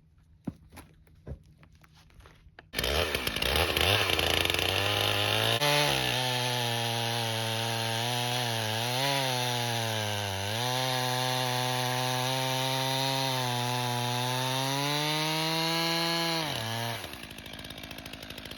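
A small gasoline engine starts up running loud and steady, its pitch dipping twice as it takes load, then winds down and stops near the end.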